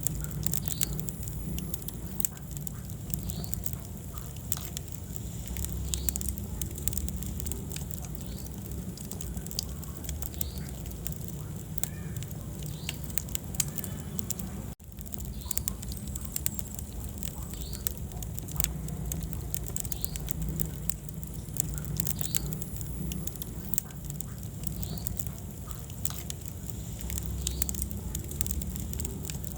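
Wood fire in a fireplace crackling: frequent sharp pops and snaps over a steady low rumble of the flames. The sound cuts out for an instant about halfway through.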